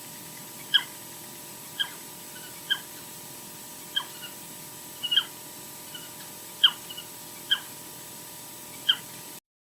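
Osprey calling: a series of short, high, slightly falling whistled chirps, about one a second, over a steady hiss. The audio cuts off suddenly near the end.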